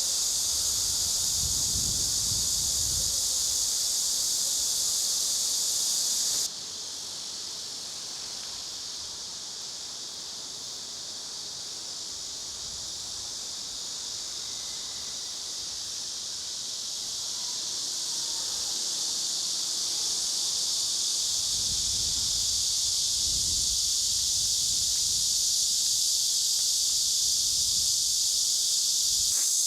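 A dense, steady chorus of insects shrilling at a high pitch. It drops suddenly about six seconds in, then slowly swells back to full strength over the second half.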